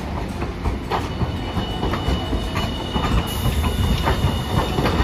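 Hiroden Green Mover LEX low-floor tram rolling slowly into the platform at close range: a low running rumble with irregular clicks of the wheels over rail joints and points, and a thin steady high whine. A high hiss joins about three seconds in.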